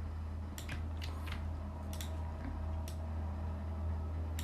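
Steady low electrical hum with a few scattered sharp clicks of a computer keyboard being typed on, mostly in the first three seconds.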